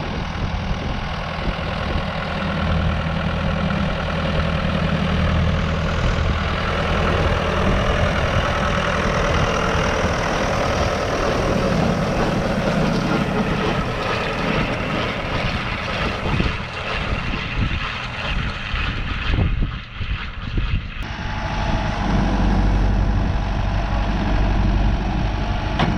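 Tractor engine running steadily, with a short break about twenty seconds in, after which it sounds deeper.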